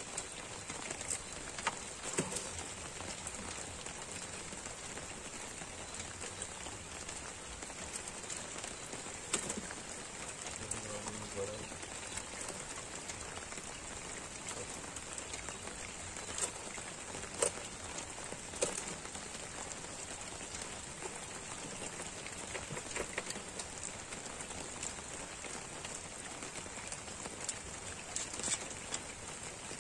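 Steady rain falling on the lake's surface, an even patter, with scattered light clicks and taps over it.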